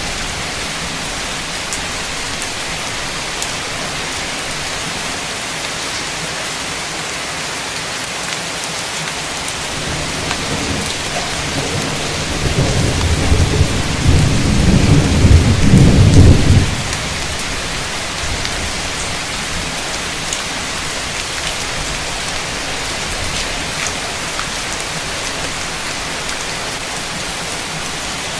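Heavy, torrential rain falling steadily. About ten seconds in, a deep roll of thunder builds, grows loud for a few seconds, then cuts off fairly suddenly while the rain carries on.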